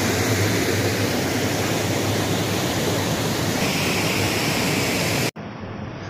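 Steady rushing of water cascading over the rock shelves of a small waterfall, cutting off suddenly near the end.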